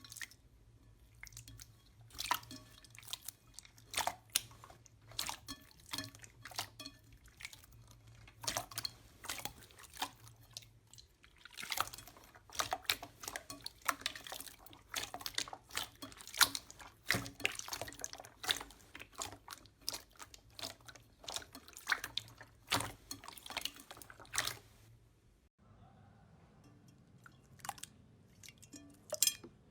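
Slime being squeezed and worked by hand, giving dense, irregular wet clicks and sticky pops, with a brief lull partway through and a quieter stretch near the end.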